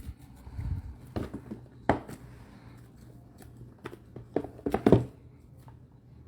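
Trading-card boxes and packaging being handled: a scatter of short clicks and knocks, with a quick cluster of them about four and a half to five seconds in.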